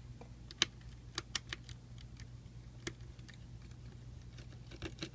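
Scattered sharp clicks and ticks of a precision screwdriver working screws out of a laptop's plastic bottom case, over a low steady hum.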